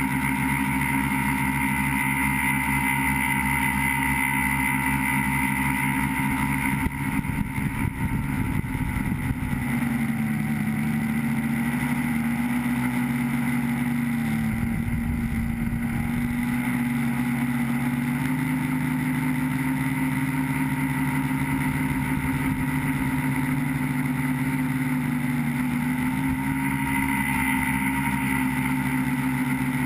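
Tricopter's three electric motors and propellers whining steadily, heard from the onboard camera. Their pitch drops about ten seconds in and rises again near the end, with a brief rough low rumble around seven to nine seconds in.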